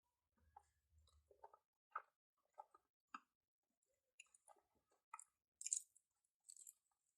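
Quiet, close-miked chewing of pizza: an irregular run of short crunches and wet mouth clicks, roughly one or two a second, the loudest a little before the end.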